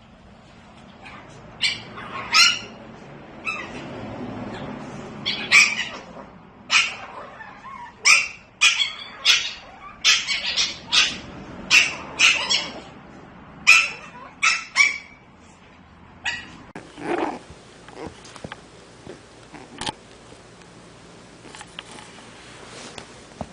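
Chiweenie puppies yipping in many short, sharp, high-pitched barks while they play-fight, thickest in the middle and thinning out to a few fainter yips near the end.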